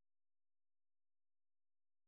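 Silence: no audible sound at all.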